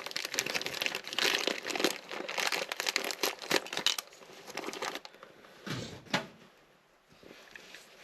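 Packaging crinkling and rustling as a new winch switch box is unwrapped, dense for about the first half, then dying down to a couple of handling knocks.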